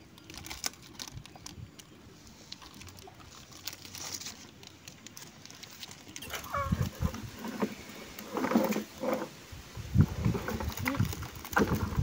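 Light crinkling and crunching of a plastic-wrapped puffed-rice bar as a baby monkey handles and bites it. About six seconds in, louder knocks and rustles start.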